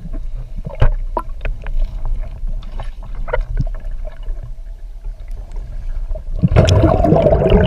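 Underwater sound through an action camera's housing: a low rumble with scattered clicks and pops. About six and a half seconds in, a loud rush of bubbling water noise.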